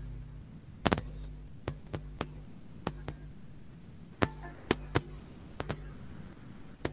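Sharp, irregular clicks or taps, about nine of them spaced unevenly, over a steady low electrical hum.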